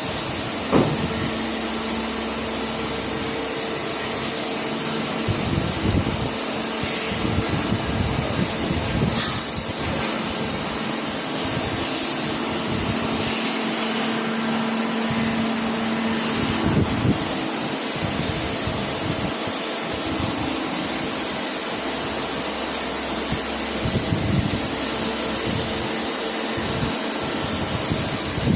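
CNC automatic machine running: a steady mechanical hum with a faint high whine and a few scattered knocks. A low steady tone in the hum cuts out about two-thirds of the way through.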